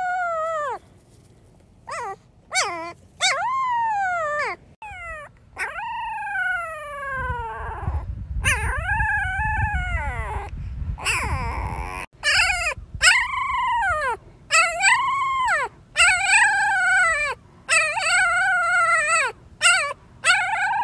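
Very young puppies howling: a long run of thin, high-pitched calls, each rising and then falling away in pitch, some drawn out and some short. A low rumble runs under the calls for a few seconds around the middle.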